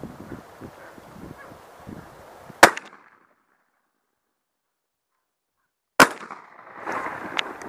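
Two shotgun shots about three and a half seconds apart, the first a little over two seconds in and the second near the end. After the first shot the sound drops out to dead silence until the second.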